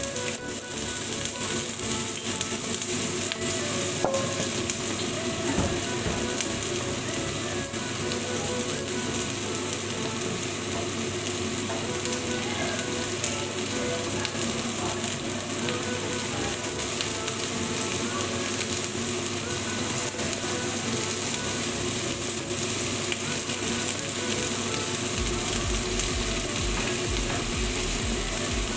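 Cubed zucchini sizzling steadily as it fries in a hot pan, just after being tipped in.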